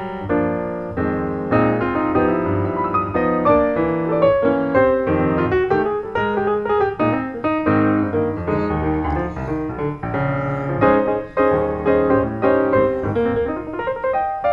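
Background piano music, a steady flow of notes with many chords.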